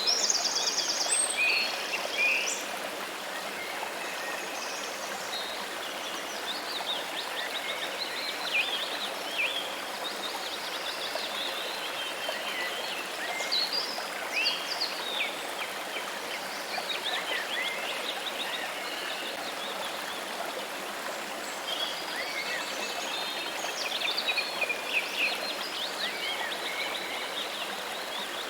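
Steady rush of running water with birds chirping and trilling over it, busiest in the first couple of seconds and again near the end.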